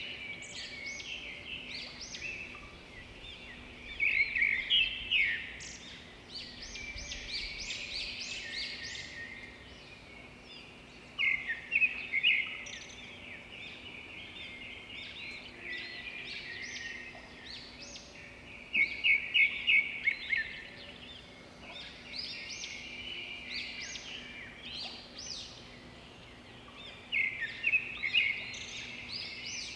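Birds chirping and singing, with loud bursts of rapid chirps recurring every seven or eight seconds and quieter chirping between them.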